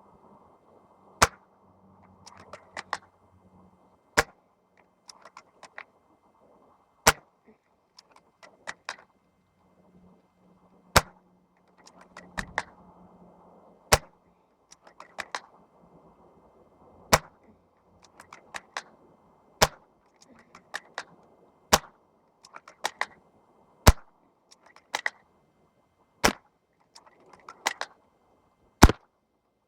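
VSR-10 bolt-action spring airsoft rifle firing again and again, a sharp crack about every two to three seconds, with smaller clicks between the shots.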